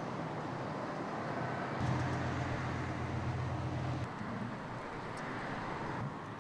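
Fire-scene ambience: a steady rush of noise, with a low engine or pump hum underneath that comes in about two seconds in and stops at about four. The sound changes abruptly at cuts between shots.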